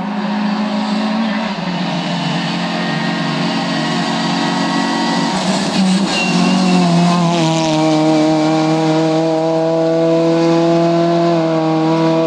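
Rally car engine at high revs as the car comes through the bend and passes close, its note shifting as it passes, then holding a strong, slowly rising note as it accelerates away. A brief high squeal about six seconds in.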